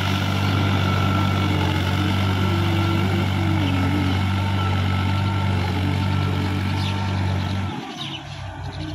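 Case IH JX55 tractor's diesel engine running steadily under load while its rotary tiller churns mud and water in a flooded paddy field. The engine sound cuts off suddenly near the end, leaving fainter background with a few bird chirps.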